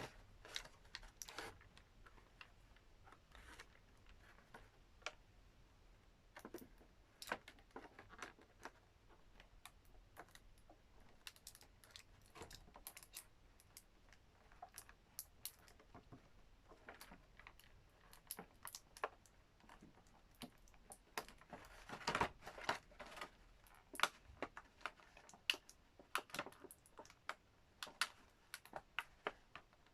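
Scattered small plastic clicks and taps, faint, more frequent near the end: a plastic toy figure's accessories being handled and worked loose from their packaging.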